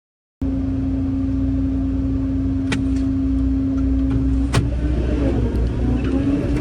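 Heavy construction machine's diesel engine running with a steady low rumble and hum, starting abruptly half a second in; the hum drops away about four seconds in. Two sharp knocks, one near the middle and a louder one shortly after.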